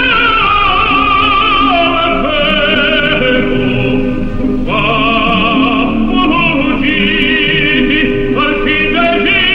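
Music with an operatic singing voice, its held notes wavering with heavy vibrato; the voice slides down in pitch near the start and breaks off briefly about four and a half seconds in before rising back.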